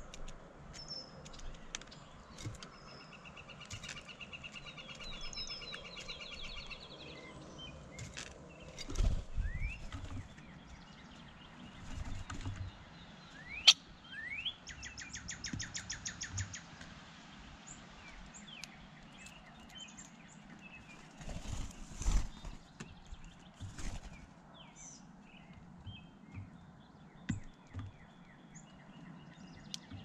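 Wild songbirds chirping and trilling around a feeder, with a few low thumps close to the microphone and one sharp click about fourteen seconds in.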